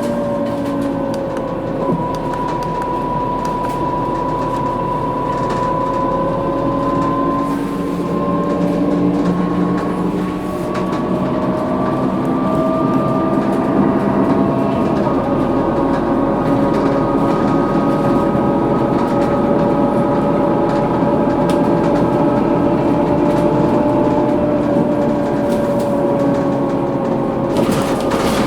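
Scania K230UB bus's rear axle differential whining in motion: several steady whining tones that drift slowly in pitch with road speed, one stepping down about halfway through, over the running noise of the bus.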